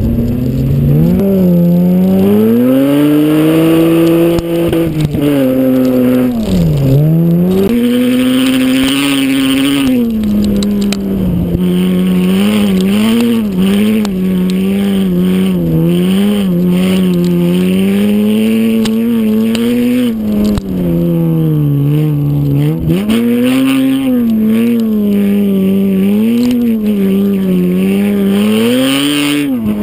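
Front-wheel-drive Mitsubishi Magna V6 sedan racing on a gravel stage, heard from a camera mounted on its body. The engine revs up and drops back over and over as the driver lifts off and gets back on the throttle. The pitch falls deeply twice, about a quarter of the way in and again past two-thirds.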